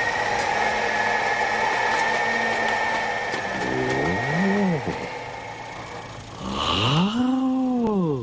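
Small electric motor of a cartoon mobility scooter whirring steadily with a high whine. A man's voice then twice gives a rising-and-falling "hmm", first briefly about four seconds in and then longer near the end.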